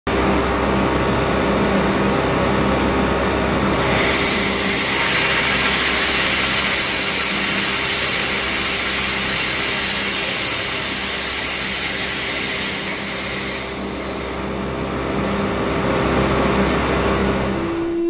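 Steam blowing out of an opened valve outlet on a steam line, a loud hiss that starts about four seconds in and stops about fourteen seconds in, over a steady machinery hum.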